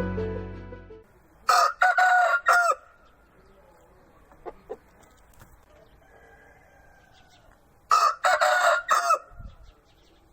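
Intro music fading out in the first second, then a rooster crowing twice, each crow lasting about a second, the second crow about six seconds after the first.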